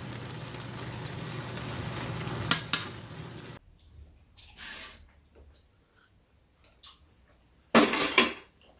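Tofu and onion sizzling as they stir-fry in a frying pan, a metal spoon stirring and clinking against the pan twice. The sizzling cuts off suddenly a little over three seconds in, leaving quiet with small knocks. Near the end come two short loud bursts.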